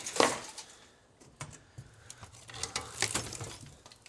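Light clattering, clinking and knocking of junk being handled and moved around: a few scattered knocks, then a short cluster of clatter with some rustling.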